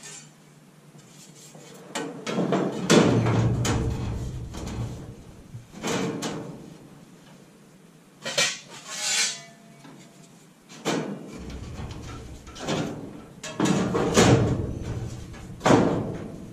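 Sheet-metal toe-board panels being handled and set into a truck cab's new floor: a run of irregular metal clanks and rattles, the loudest about three seconds in and again near the end.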